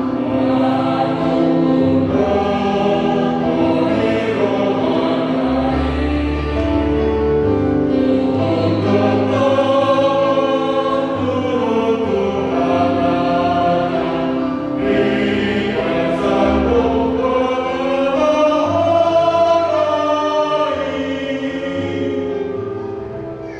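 A group of voices singing a slow church hymn in long held notes, with low bass notes underneath; the singing fades out near the end.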